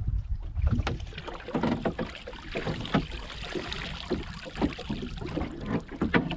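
A round wire-mesh crab pot hauled up by its rope over the side of a small boat, water splashing and streaming off the mesh as it comes out, with knocks and rattles of the pot and rope against the boat. A low wind rumble on the microphone runs underneath.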